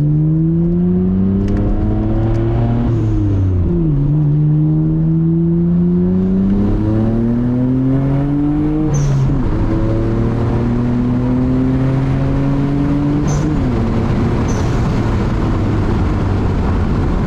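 Nissan Skyline GT-R R32's twin-turbo RB26 straight-six pulling through the gears, its pitch climbing steadily and dropping at each of three shifts, then holding steady near the end. Short sharp hisses at the later shifts are the HKS blow-off valve venting.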